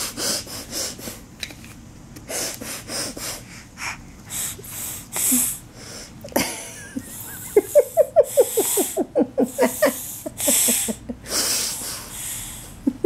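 A little girl sniffing hard through her nose again and again in short bursts, quickly at first and then in longer sniffs. Laughter breaks in between the sniffs from about halfway.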